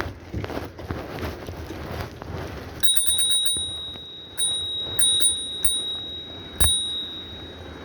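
Bicycle bell rung in several quick bursts of strikes, its ring held between them, starting a little under three seconds in, over the noise of riding. One strike near the end is sharper and louder than the rest.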